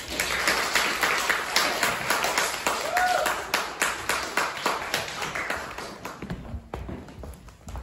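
Audience applauding, loudest at first and thinning out after about six seconds.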